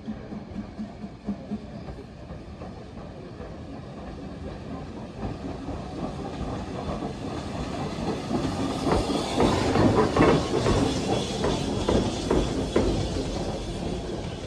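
LSWR Urie S15 4-6-0 steam locomotive running light at low speed, its wheels clicking over the rail joints while steam hisses. The sound builds to its loudest about ten seconds in as the engine comes close, then eases slightly.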